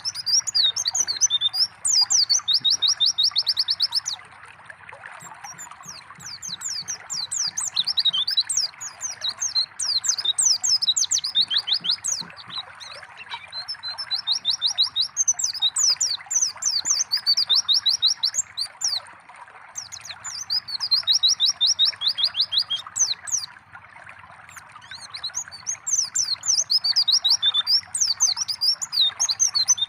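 White-eye (pleci) song in repeated bouts of rapid high twittering and trills, each a few seconds long with short pauses between, over a steady trickle of running water.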